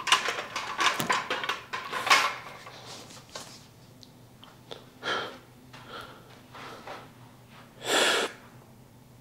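Barbell clattering and shoes scuffing for about two seconds as the bar is lifted off the squat rack and walked back. Then a few short breaths, the loudest a sharp breath near the end.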